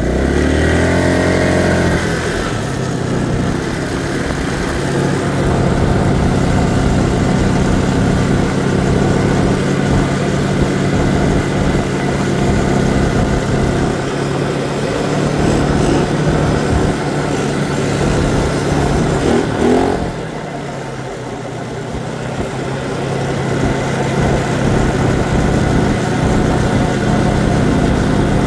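ATV engine running under way, pulling up in pitch during the first couple of seconds. It eases off about twenty seconds in, then picks up again.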